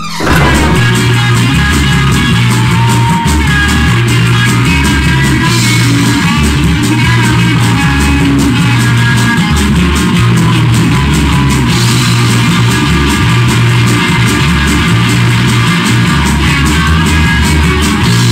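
Loud rock music with electric guitar over a repeating bass line, starting abruptly.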